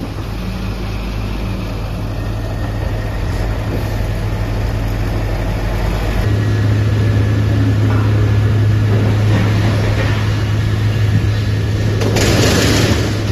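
Large industrial drum wood chipper running with a steady low machine hum that shifts and grows louder about six seconds in. A louder rushing noise rises near the end.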